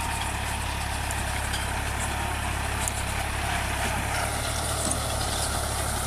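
Tractor engine running steadily under load, pulling a tractor-drawn potato digger that lifts potatoes out of the soil.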